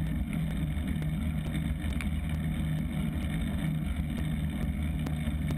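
Steady low rumble of wind and tyre noise picked up by a camera mounted on a bicycle rolling along an asphalt street, with a faint steady hum.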